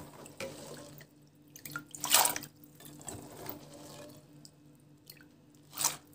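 Water splashing and sloshing in a metal pot of soaked fava beans, with two louder splashes, about two seconds in and near the end, over a faint steady hum.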